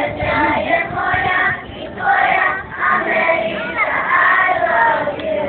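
A group of young children singing a Croatian song together.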